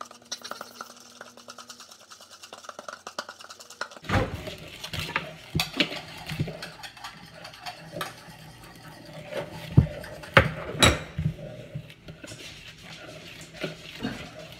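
Spoons stirring cake batter in mixing bowls: a quick, soft scraping at first, then from about four seconds in, irregular knocks and clinks of spoon against bowl, the loudest a few sharp strikes around ten seconds in.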